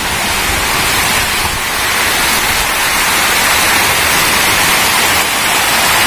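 Water of a waterfall rushing steadily: a loud, even hiss of falling water.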